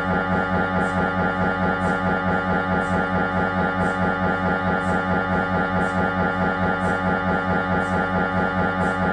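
Siemens Magnetom Avanto 1.5 T MRI scanner's gradient coils running a pulse sequence: a steady pitched tone pulsing in an even rhythm about three to four times a second, with a fainter high tick a little over once a second.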